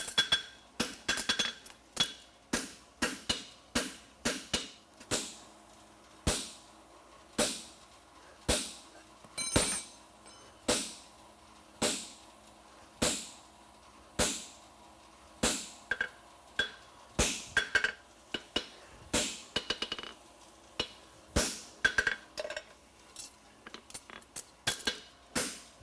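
Farrier's hammer striking a steel horseshoe on an anvil to flatten the shoe. The blows come about one a second, with quicker runs near the start and near the end, each with a short metallic ring.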